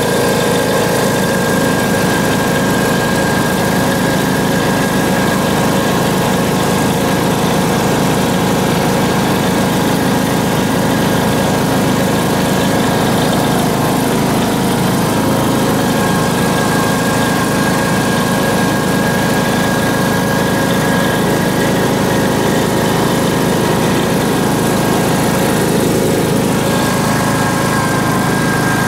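Troy-Bilt Pony riding mower's engine running steadily as the mower is driven.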